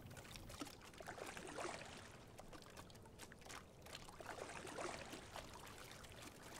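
Faint water swishing and lapping along a racing rowing shell's hull as it glides through calm water, swelling twice about three seconds apart.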